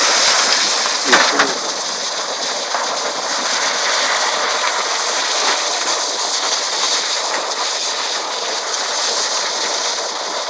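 Water from a burst underground water main gushing and spraying up out of the road, a steady loud rushing hiss.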